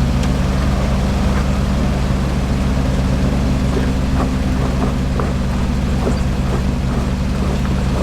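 Off-road rock crawler's engine running at low, steady revs while the rig crawls over rocks, with scattered light knocks.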